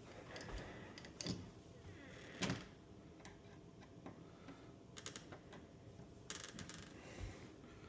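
Door-handle hardware being handled and refitted: scattered faint clicks and knocks, the loudest a single knock about two and a half seconds in, with quick runs of clicks around five and six and a half seconds in.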